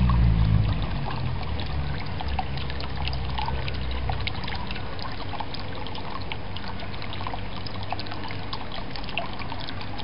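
Water trickling steadily into a garden pond, dotted with many small droplet plinks. A low hum underneath fades out about four seconds in.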